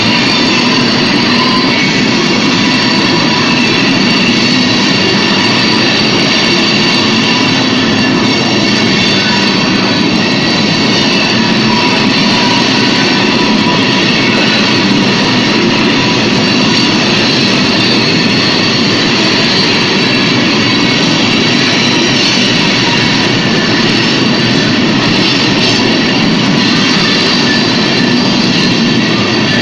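A loud, steady screaming roar: an unbroken rushing noise with several high whining tones held over it, not rising or falling. This is the 'horrible screaming noise' that was heard across the area.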